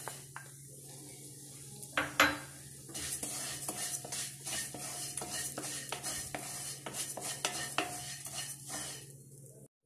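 Dry vermicelli being stirred and scraped around a non-stick kadai with a wooden spatula as it roasts in a little ghee. Two sharp knocks come about two seconds in, then a quick run of light scrapes and taps.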